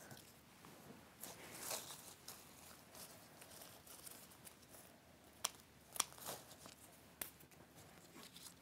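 Faint rustling and crinkling of sprigs of variegated foliage being handled and worked into a table flower arrangement, with a few sharp clicks in the second half.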